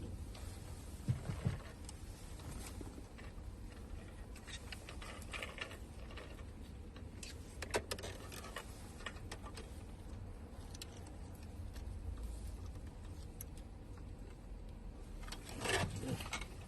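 Light clicks and rattles of small parts being handled during work on a fuel pump assembly, over a low steady hum. There is a short louder sound near the end.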